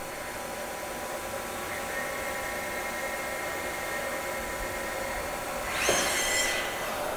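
A 2003 Haas SL-10 CNC slant-bed lathe running through a program, a steady machine whine made of several tones. A higher tone joins about two seconds in. Near the end there is a brief, loud rush as the turret moves.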